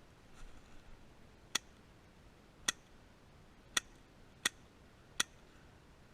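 Five sharp single shots from an airsoft rifle, fired one at a time about a second apart, then faster near the end.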